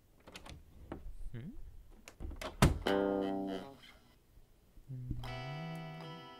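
Electric guitar: a sharp click, then a strummed chord about three seconds in that rings and fades, and a second chord about five seconds in, left ringing. A few scattered clicks come before the first chord.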